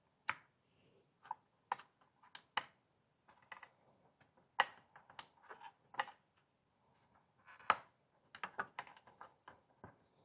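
Light, irregular clicks and taps of small computer parts and a screwdriver being handled while a Mac mini M4's SSD module is lifted out and swapped, about fifteen separate clicks spread unevenly.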